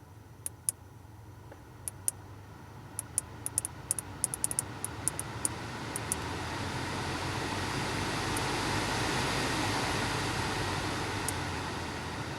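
Irregular sharp clicks, about a dozen in the first six seconds, inside a 2002 Audi A4 B6 1.6 petrol: the strange noise from somewhere around the dashboard that the owner cannot place. Under them, cabin noise swells through the middle and eases toward the end.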